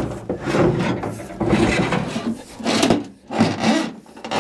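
An old outboard steering cable being pulled out through the boat, scraping and rubbing against the hull and fittings in several uneven bursts.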